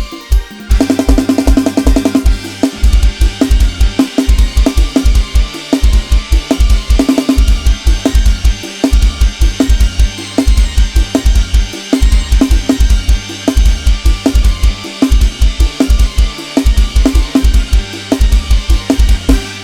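Lam sing-style Isan dance music with a sampled drum kit from Addictive Drums 2. A fast, driving bass-drum pattern and snare hits play over a bass line and melody.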